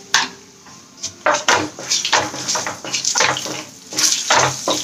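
A spoon stirring and scraping the hot oil tempering around a non-stick kadai, in quick repeated strokes about three a second, starting about a second in.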